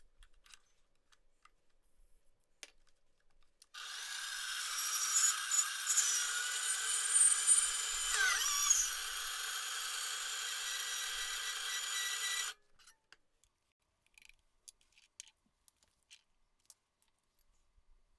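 A power tool runs for about nine seconds, starting and stopping abruptly, with a few brief changes in pitch as it works. Light clicks and taps of handling come before and after.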